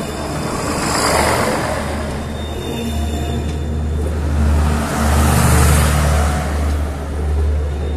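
Train rolling directly overhead: a steady low rumble under the wheel-and-rail noise, which swells about a second in and again around four to six seconds in as bogies pass over.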